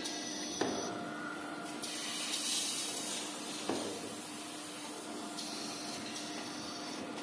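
Automatic maxi roll band saw cutting machine running: a steady hum with a hiss that swells about two seconds in, and two sharp clacks about three seconds apart.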